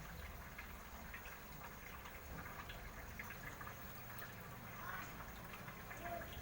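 Faint water trickling and splashing from an aquascape's four small waterfalls, fed by a single pump, with a low steady hum underneath.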